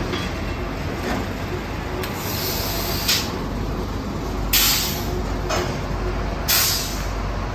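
Water well drilling rig's power unit running steadily while its control-panel levers are worked, with three sharp hissing bursts from the rig's valves: a longer one about two seconds in, then short ones near four and a half and six and a half seconds.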